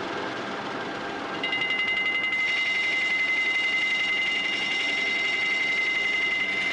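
Lathe turning a steel shaft, with a steady noise of metal cutting. About a second and a half in, a high, steady whine with a fast flutter joins it, like a cutting tool squealing as it chatters.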